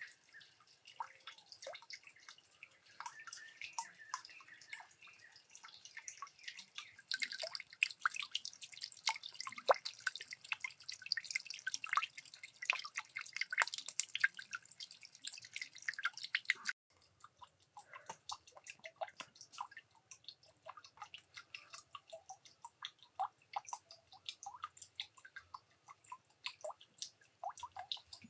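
Water dripping and trickling from a small bamboo waterwheel into a shallow pond, a steady patter of many small drips. The patter grows louder and denser about a quarter of the way through, then drops suddenly to a quieter, sparser dripping a little past halfway.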